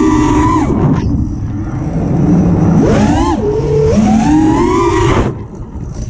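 FPV quadcopter's brushless motors and propellers whining in flight, heard from the onboard camera with wind rush. The pitch is high at first and falls away about a second in. It climbs again near three seconds and around four, then drops sharply a little after five seconds as the throttle comes off.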